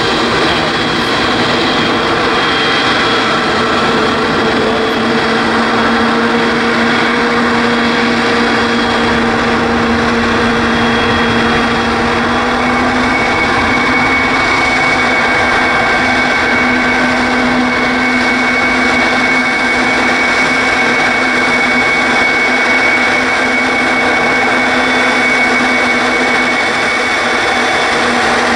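Boeing 777-300ER's two GE90 turbofan engines running at taxi power: a steady jet rush with a high whine. The whine steps up slightly in pitch about twelve seconds in.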